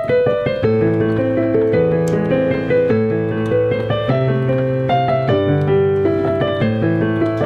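Casio Celviano digital piano being played: a melody and chords over held bass notes.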